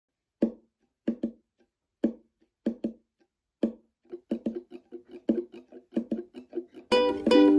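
Ukuleles played percussively: short muted knocks in a rhythm, sparse at first and coming faster about four seconds in. Near the end, full strummed ukulele chords ring out.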